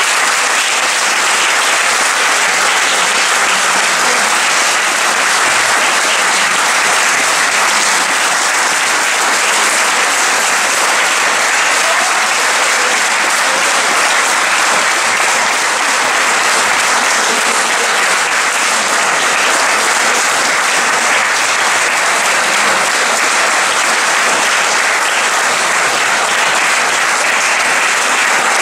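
Audience applauding, a long, steady round of clapping.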